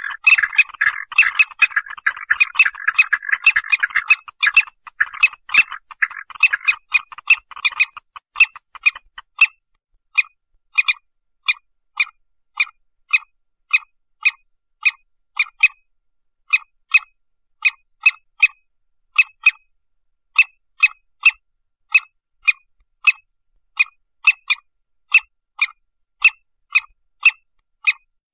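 Animal calls: a dense chorus of short clicking calls for the first several seconds, thinning to a steady train of short, sharp calls at about two a second with brief pauses.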